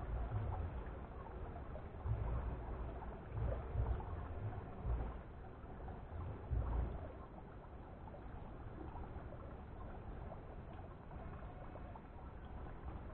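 Outdoor ambience: irregular low rumbles of wind buffeting the microphone over a steady faint wash of water trickling into a small fish pond.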